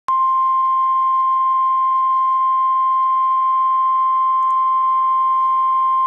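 NOAA Weather Radio warning alarm tone: a single steady, loud high-pitched tone of about 1050 Hz that signals an urgent warning is about to be broadcast.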